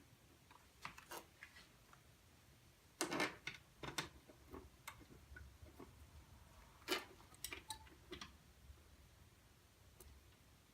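Small silver machine screws and a plastic diffuser panel being handled and fitted: scattered light clicks and taps of metal on plastic, loudest about three and seven seconds in.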